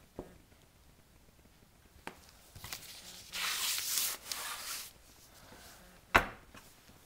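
Rough scraping and rubbing as thick etching ink is worked across a copper etching plate by hand, loudest for about a second and a half in the middle, with a few sharp knocks, the loudest near the end.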